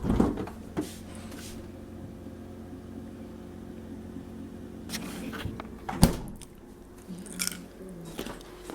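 A steady low hum with a few sharp knocks and clicks of things being handled; the loudest knock comes about six seconds in, another right at the start.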